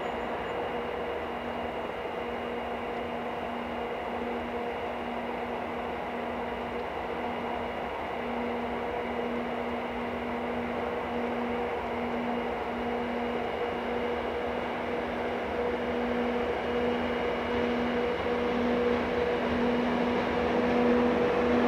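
An EF64 electric locomotive's steady electric hum over a rushing noise, slowly growing louder as the train draws nearer.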